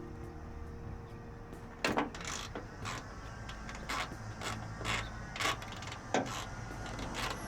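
Ratchet wrench clicking in short strokes, about two a second from about two seconds in, as a hood hinge bolt is turned.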